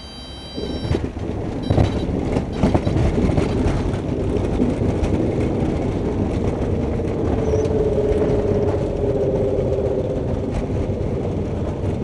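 Cabin sound of a twin-engine Piper Seneca III touching down: about a second in the level jumps as the wheels meet the ground, then the airframe rumbles and knocks loudly as it rolls out over the strip, with the engine drone beneath.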